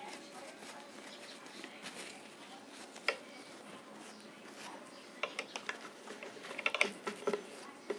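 Faint handling of cloth on a table, with a few small clicks and taps, one about three seconds in and a quick cluster from about five to seven and a half seconds in.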